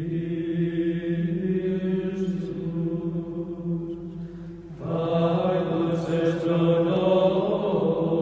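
Background music of long, sustained chords, with a fuller layer coming in about five seconds in.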